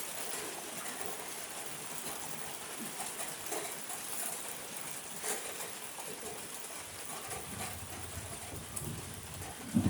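Steady rain hiss with scattered drops during a thunderstorm; about seven seconds in, a low rumble of thunder begins and swells toward the end.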